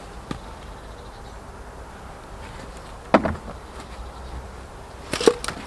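Wooden knocks and creaks from a pallet bench as a person sits on it to test its newly screwed-on backrest. There is one sharp knock about three seconds in and a quick cluster of knocks near the end.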